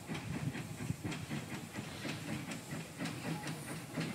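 Small steam tank locomotive running toward the listener: quick, regular exhaust beats with a steady hiss of steam.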